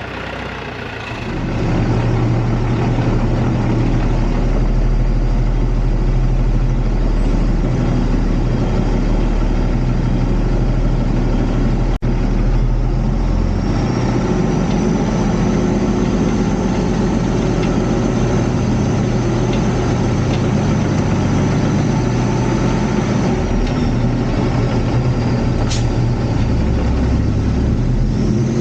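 Peterbilt semi truck's diesel engine running steadily, growing louder about a second and a half in.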